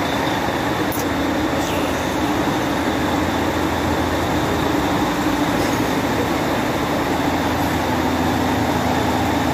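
Diesel truck engine idling: a steady drone with a constant hum.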